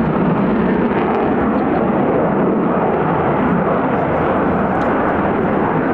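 Boeing F-15QA fighter jet in flight, its twin turbofan engines giving loud, steady jet noise.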